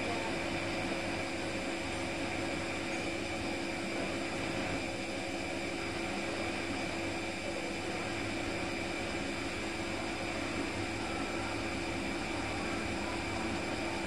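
Bosch Serie 4 front-load washing machine running mid-cycle, its drum motor giving a steady hum with a low rumble and a few steady higher tones.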